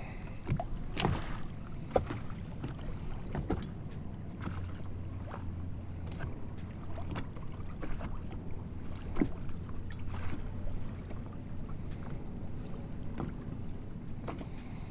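Small boat drifting on choppy water: wind on the microphone and water lapping, under a steady low hum, with scattered light clicks and knocks.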